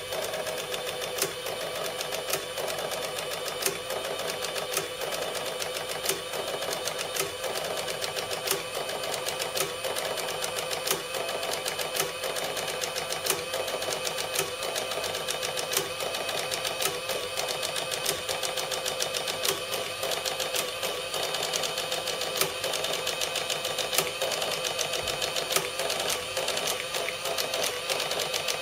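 Cash register running with a continuous mechanical hum and a steady scatter of sharp clicks, never stopping.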